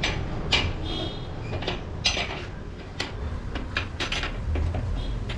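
Metal hand tools and motorcycle parts clinking and knocking in a string of separate strikes, some with a brief metallic ring, during work on the wheel axle.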